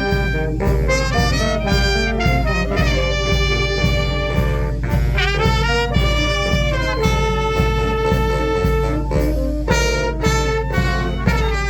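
A brass-and-percussion fanfare band playing a tune, with brass carrying the melody over a steady drum beat.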